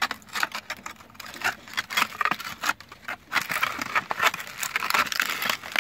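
An old iron horseshoe scraping and knocking against rusted MG machine-gun barrels, with gritty soil scratched and crumbled away by hand. It is a run of short clicks that gives way to dense, uneven scraping after about a second and a half.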